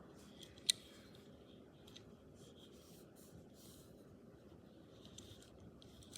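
Light scratching and rustling from handling a Matchbox die-cast toy car and its packaging, with one sharp click about a second in.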